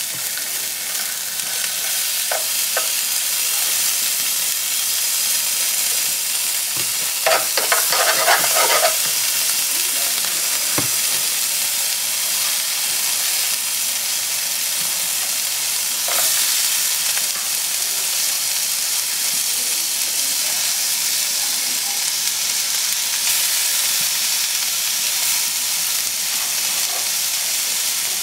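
Sliced bell peppers and minced garlic sizzling in butter in a nonstick skillet, a steady hiss. A few knocks and clatters break in, the busiest stretch about seven to nine seconds in.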